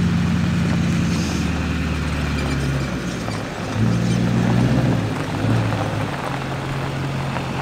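Background music with steady low bass notes that change pitch in steps, over a diesel pickup driving up on gravel.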